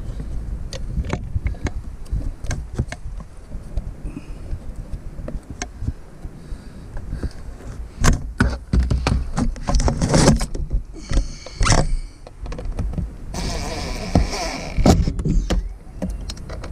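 Handling noise of hands working up under a car dashboard: irregular clicks, knocks and rubbing against plastic trim and carpet, busier from about halfway, with a couple of seconds of scraping and rustling near the end.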